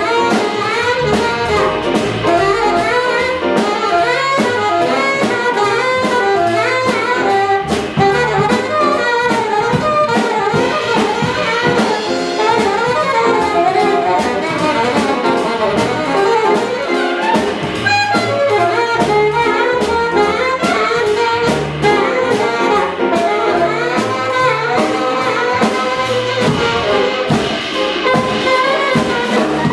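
Live jazz quintet playing an up-tempo tune: an alto saxophone solos in fast, busy runs over piano, upright bass and a drum kit with steady cymbal work.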